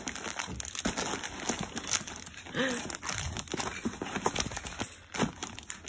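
Plastic costume packaging crinkling and rustling as it is handled and opened by hand, with irregular crackles.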